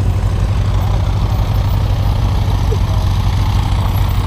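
A steady, loud low engine drone, like an idling engine, with no change in pitch.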